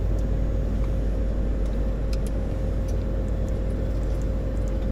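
Steady rumble and hum inside the cockpit of a Gulfstream G150 business jet with its Honeywell TFE731 turbofan engines running after start, a steady tone held over the rumble. A few faint clicks.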